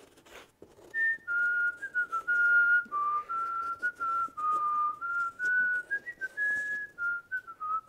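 A person whistling a tune: single clear notes stepping up and down, starting about a second in.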